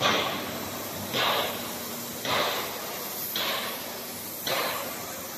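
Blown-film extrusion machine running, with a sharp hiss about once a second, each burst fading quickly, over a steady machine hum.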